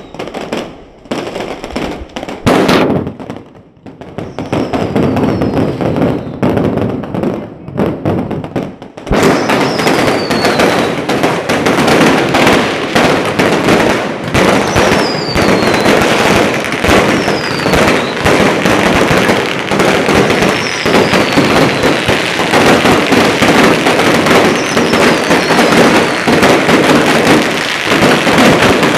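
Firecrackers going off: scattered sharp bangs for the first several seconds, then, from about nine seconds in, a dense, unbroken rapid crackle like a long string of firecrackers. Short falling whistles sound every second or two over the crackle.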